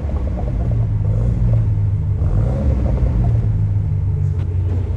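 BMW Z4 E89 being revved with its THOR 2.0 electronic exhaust sound generator, a single unit under the rear bumper, playing the BMW M3 E92 engine sound profile over the real exhaust. It makes a deep, steady bass rumble.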